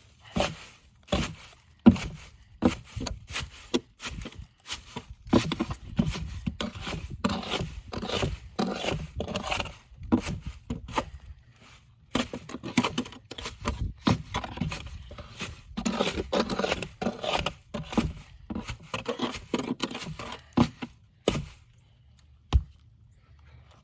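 Repeated scraping and rustling work noises in quick, irregular strokes with short knocks. They die away about 21 seconds in.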